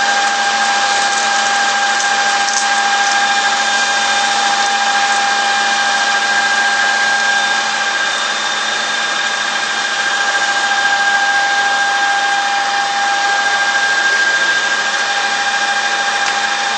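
Birmingham metal lathe running at 800 RPM: a steady mechanical whine with several held tones over a constant machine noise.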